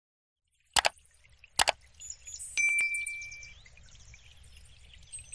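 Sound effects of a subscribe-button pop-up: two sharp mouse clicks about a second in, then a light glassy tinkle and a short bright ding.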